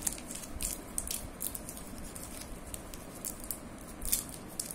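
Fingers handling and peeling open the wrapper of a stick of two-part epoxy modelling putty: soft, irregular crinkles and small clicks.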